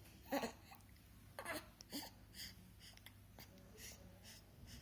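A baby hiccuping and fussing: about half a dozen short hiccup sounds, some voiced with a brief whimpering note, spaced roughly half a second to a second apart.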